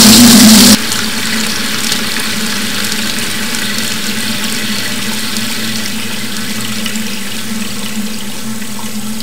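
Steady rushing noise, like running water, with a low steady hum underneath. It is loud for the first moment, then drops abruptly to a quieter level that holds.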